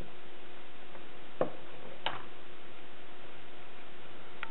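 Wooden spoon stirring a thick chocolate and banana mixture in a stainless steel saucepan, with three light knocks of the spoon against the pan, over a steady low hum.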